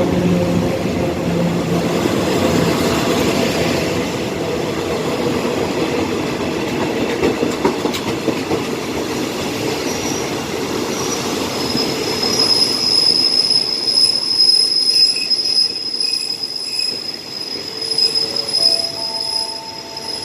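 A passenger train rolling slowly past. A low diesel engine hum fades in the first couple of seconds, then a high, steady wheel squeal sets in about halfway through and holds to the end.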